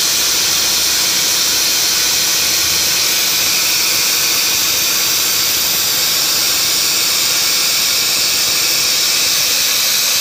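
Torch on a CNC gantry cutting machine cutting through rusty carbon steel plate. The gas jet makes a steady, loud hiss throughout.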